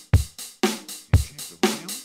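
Zoom R8 sampler playing a looped drum-kit pattern, held on by a pressed pad: a kick drum about once a second with a snare hit between, and cymbal over a steady beat.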